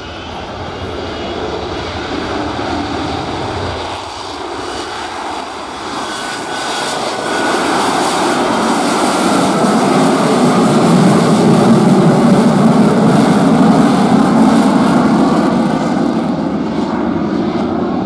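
Lockheed Martin F-35B's F135 jet engine and lift fan at high power, lifting the jet off in STOVL mode and holding it in slow, gear-down flight with the lift-fan door open. The roar builds steadily, with a crackle in it, and is loudest a little past halfway.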